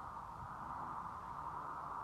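Faint, steady drone of dirt bike engines running out on a motocross track.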